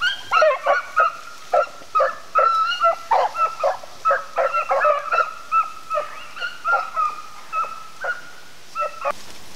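A pack of beagles baying as they run a rabbit: short, pitched barks and drawn-out bawls, overlapping, about two to three a second, stopping shortly before the end.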